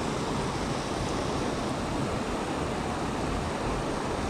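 Steady rushing of creek water spilling over a low concrete weir.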